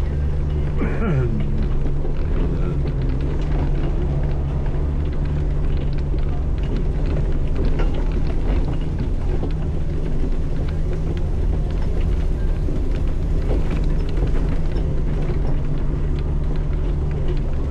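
Side-by-side utility vehicle's engine running steadily at low, even speed while driving along a dirt trail, with small scattered rattles and knocks.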